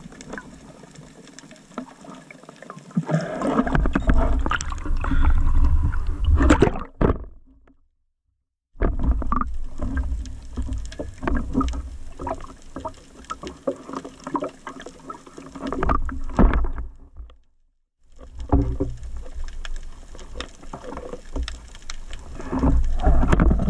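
Underwater noise at a speargun-mounted camera: water rushing and sloshing around the housing, with frequent clicks and knocks and swells of low rumble. It drops to silence twice for about a second.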